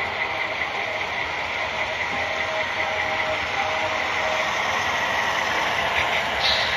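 Model railroad passenger train pulled by cab-unit diesel locomotives rolling past, with a steady diesel-engine running sound and a constant high whine.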